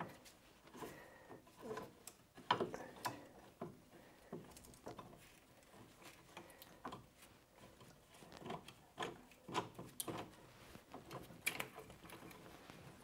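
Faint, scattered metal clicks and knocks of an internal spring compressor's plates being handled and fitted between the coils of a car's rear coil spring, with a cluster of clicks late on.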